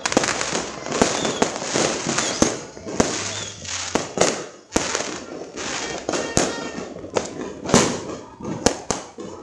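Firecrackers and fireworks going off all around: sharp bangs about twice a second at irregular intervals over a continuous noisy wash, with voices in the background.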